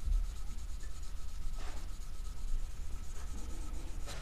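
A cotton ball wetted with acetone rubbing the printing off a plastic Super X slug shotgun hull: soft rubbing strokes over low hand-handling rumble.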